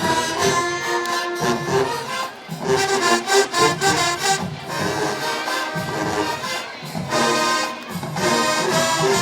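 HBCU show-style marching band playing a brass-led tune with a steady drum beat.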